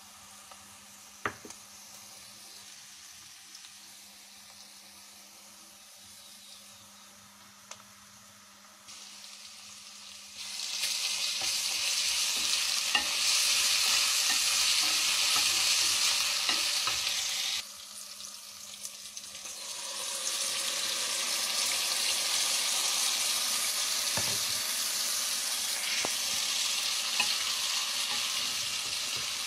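Food frying in hot oil in a metal wok while being stirred with a spatula. A faint hiss with a couple of light clicks gives way to loud sizzling about ten seconds in. The sizzling drops suddenly a few seconds later, then builds back to a steady sizzle.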